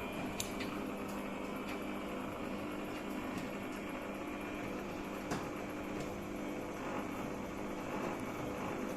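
Samsung front-loading washing machine running its spin cycle: a steady motor and drum hum with a few faint clicks. It is spinning again now that the blocked drain has been cleaned out.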